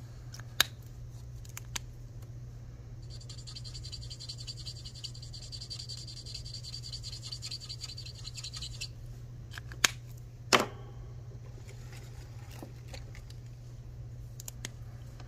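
Felt-tip marker scribbling quickly back and forth on paper for about six seconds, colouring in a heart. A few sharp clicks come before and after as the marker is handled, the loudest two about ten seconds in.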